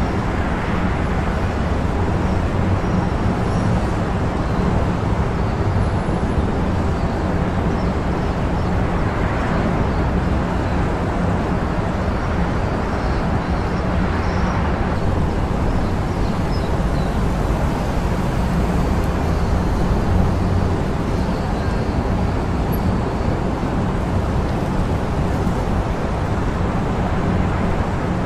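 Steady low rumble of a car on the road with road noise, unchanging throughout.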